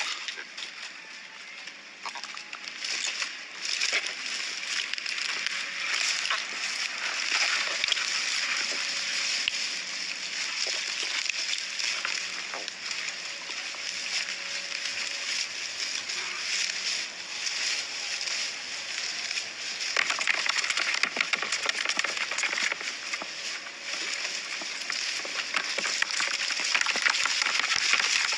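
Water sloshing and splashing continuously, full of small crackling splashes, louder in the last third.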